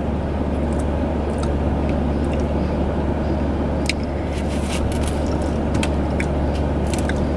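Steady low hum and rumble of a car cabin, with a few faint clicks.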